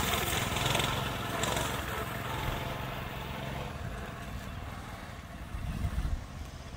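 Coleman 200 minibike's small single-cylinder four-stroke engine running as the bike rides away, fading steadily with distance. A brief low rumble comes near the end.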